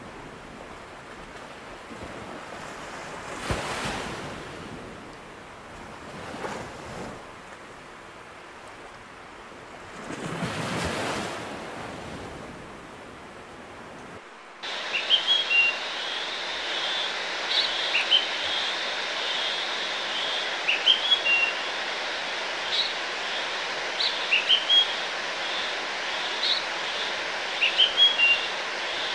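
Ocean waves washing in, swelling three times. About halfway through the sound cuts abruptly to birds chirping repeatedly over a steady hiss.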